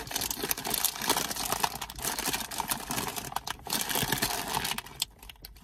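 Crinkly plastic snack-chip bag crackling as it is handled and pulled at, a dense run of small crackles that eases off near the end.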